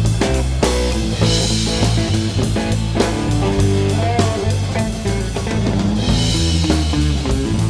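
Live rock band playing an instrumental passage: electric guitar over a drum kit keeping a steady beat, with cymbal washes about a second in and again near the end.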